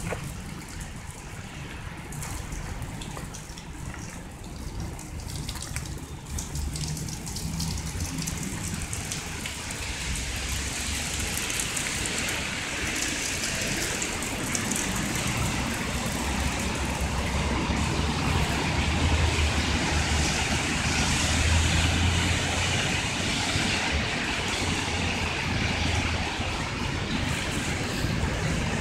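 Motor vehicle running, with engine hum and a hiss of tyres on the road that grows louder partway through.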